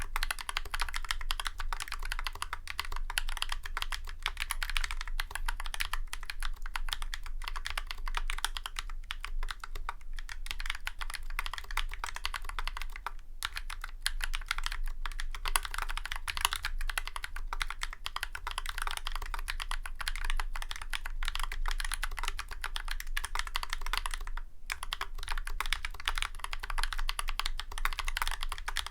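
Continuous fast typing on a Drop CTRL High Profile mechanical keyboard with tactile YOK Holy Panda switches, lubed with Krytox 205g0 and Tribosys 3203, and GMK White on Black keycaps, its case dampened with sorbothane and foam. A dense run of key clacks, broken by two short pauses, about 13 seconds and about 24 seconds in.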